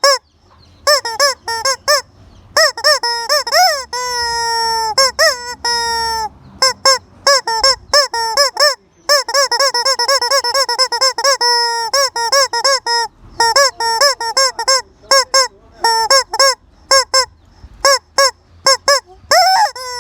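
A chicken calling loudly and insistently: a long series of short, harsh, honking squawks, some coming in rapid runs and a few drawn out with a bending pitch.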